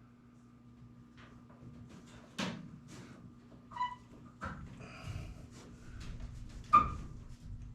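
Scattered knocks, clicks and scrapes of a SharkBite push-to-connect fitting being worked onto a copper water pipe, with a sharper knock near the end as it goes fully on. A steady low hum runs underneath.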